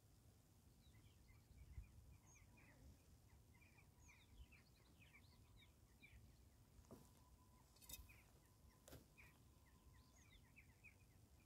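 Faint twittering of small birds: many short scattered chirps. A few sharp handling clicks and knocks about two-thirds of the way through, and a faint steady whine from about seven seconds in.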